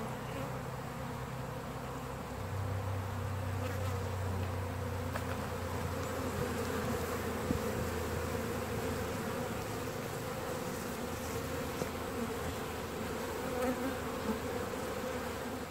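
Many bees buzzing in a steady hum.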